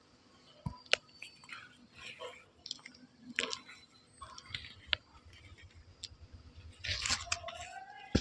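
Someone biting and chewing chalk: scattered sharp crunches with softer chewing in between.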